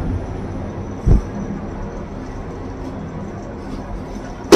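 Passenger lift car running with a steady low hum, a short low thump about a second in, and a sharp clack near the end.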